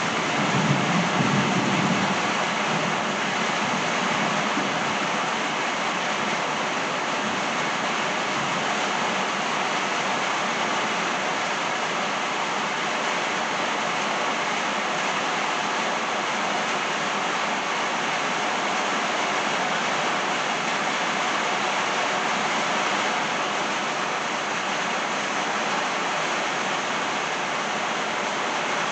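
Steady rain falling on trees and a wet driveway, a dense even hiss. A low rumble of thunder dies away in the first couple of seconds.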